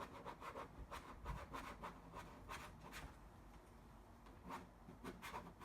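Plastic credit card rubbed in short strokes over a vinyl decal on sheet metal, pressing it down to work out air bubbles: faint, scratchy scraping, quieter around the middle.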